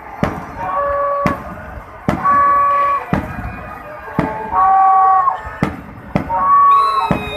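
Aerial fireworks shells bursting, about eight sharp bangs spread out at irregular intervals, with four short steady held tones sounding in between.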